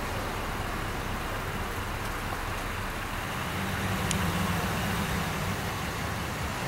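Steady road-vehicle rumble, with a pickup truck's engine approaching and growing louder from about halfway through.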